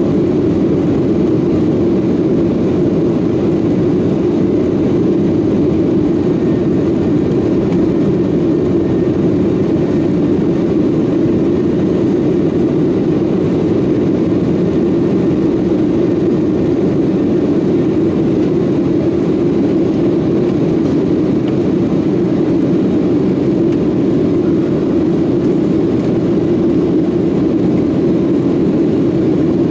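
Steady drone of a Boeing 737-800's CFM56-7B turbofans and the airflow, heard inside the passenger cabin during the climb after takeoff.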